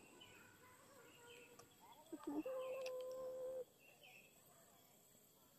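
Faint outdoor ambience, with one distant animal call about two seconds in that glides up and then holds steady in pitch for about a second.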